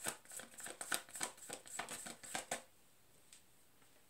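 A deck of tarot cards being shuffled by hand: a quick run of card flicks and riffles that stops about two and a half seconds in.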